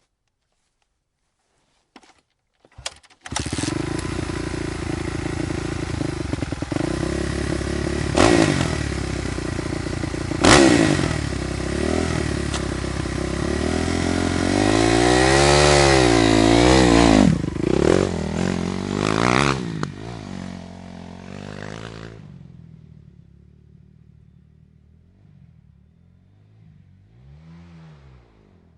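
Dirt bike engine catching about three seconds in after a few clicks, then running with sharp throttle blips and several revs up and back down. Near the end it drops off to a faint, low running sound.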